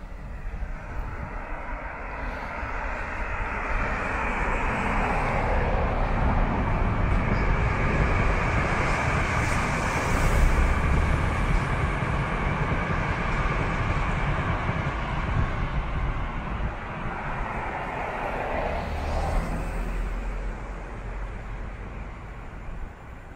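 Keikyu electric commuter train passing on the line: a long rush of wheel and track noise over a low rumble that builds for several seconds, is loudest about halfway through, and fades away near the end.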